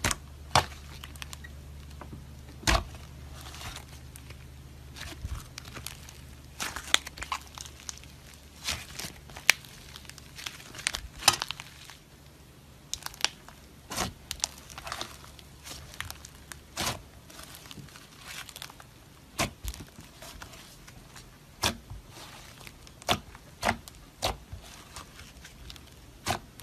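Hands kneading, folding and pressing thick, soft slime, giving irregular sticky crackles and sharp pops. A faint low hum sits underneath for the first several seconds.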